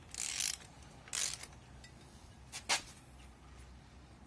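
Handling noise from work on a gearbox casing: two short scrapes, then one sharp click a little before three seconds in, most likely as the detent plugs are screwed in.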